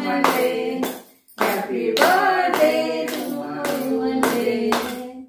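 A few women singing a song together, clapping their hands in time at about two claps a second. The singing and clapping break off briefly about a second in, then carry on.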